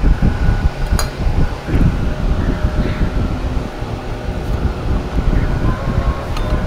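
Motor scooter on the move, its running and road noise under heavy wind buffeting on the microphone, with a sharp click about a second in and another near the end.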